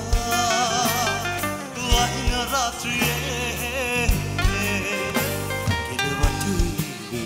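A man singing a ballad live with a band behind him: piano and drums, his long notes held with vibrato.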